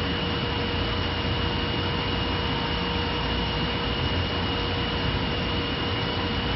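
Three-spindle CNC wood turning lathe running steadily as it turns wooden stair-railing spindles: a constant hiss with a steady whine.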